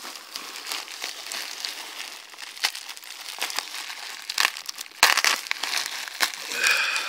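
Plastic bubble wrap crinkling and rustling as hands pull at and unwrap it, with sharp crackles throughout, the loudest about five seconds in.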